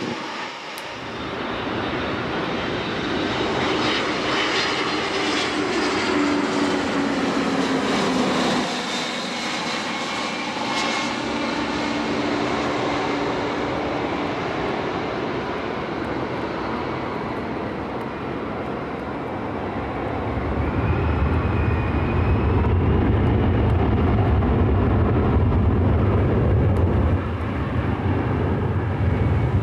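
Twin-engine jet airliner's engines at takeoff thrust as it climbs away, their whine falling in pitch. Then the twin turbofans of a UPS Airbus A300 freighter on final approach, swelling into a heavy low rumble about two-thirds of the way through as it passes close just before touchdown.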